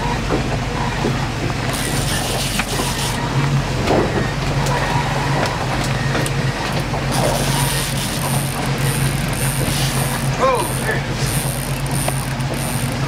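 Fishing reel being cranked in spells against a hooked lake trout, a ticking, whirring mechanical sound: once about 2 s in, then in short repeated spells from about 7 s on. Under it the boat's engine hums steadily.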